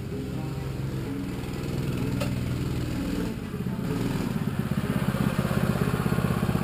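A mini bike's small single-cylinder engine running as the bike rides up close. It gets louder from about halfway through, with a fast, even pulsing beat.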